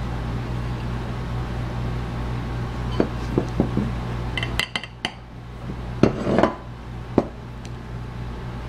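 Glass jar being picked up and handled, with a series of scattered clinks and knocks of glass and lid against each other and the table. A steady low hum runs underneath.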